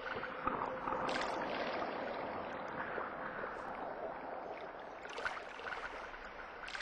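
Water lapping and splashing, with a couple of sharper splashes.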